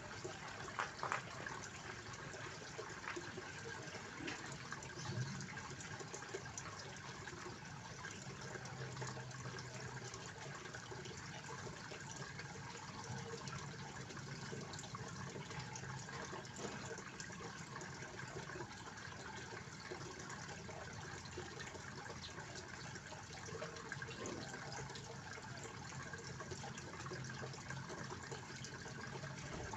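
Water from a small fountain spilling steadily into a koi pond, a continuous splashing trickle, with a few sharper splashes about a second in.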